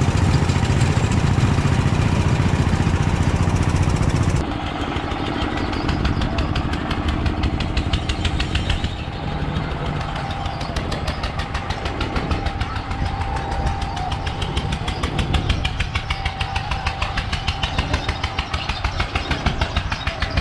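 An engine running steadily with a fast, even pulse, amid the machinery of fairground rides. A loud low rumble fills the first few seconds, and the sound changes abruptly about four seconds in and again near nine seconds.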